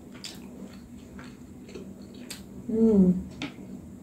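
Close-miked mouth chewing steamed momo dumplings: soft wet clicks and smacks scattered through, over a faint steady low hum. About three seconds in comes a short voiced sound from the eater, falling in pitch.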